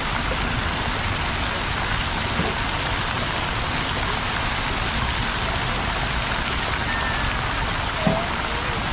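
Steady, dense rush of water falling and splashing into a shallow pool from a plaza fountain.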